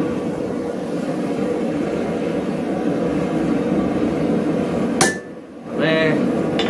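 Hand hammer working a forged steel J-hook on the anvil over a steady hum, with one sharp strike about five seconds in.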